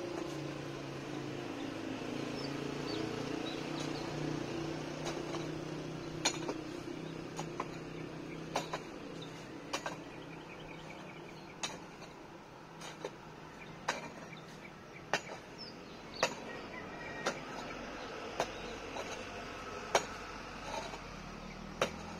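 Metal digging tool striking hard, stony soil as a foundation trench is dug by hand: sharp, irregular clinks, about one a second from about six seconds in.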